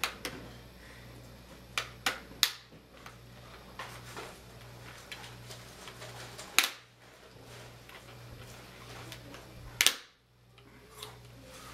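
Plastic snap clips of a Gateway NE56R27U laptop's LCD screen bezel clicking loose as the bezel is pried off by hand: a scattered series of sharp snaps, the loudest two about six and a half and ten seconds in.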